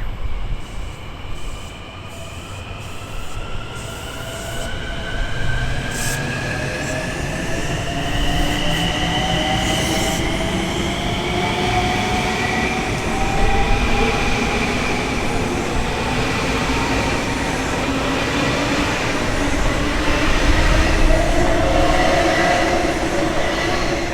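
Long Island Rail Road train pulling out of a station, its drive whine rising steadily in pitch as it picks up speed, with a couple of sharp clicks from the wheels along the way.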